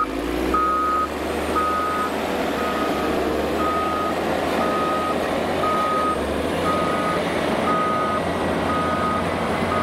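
Cat 160M motor grader reversing over gravel: its backup alarm gives a steady single-pitch beep about once a second, over the running diesel engine and tyres crunching on gravel.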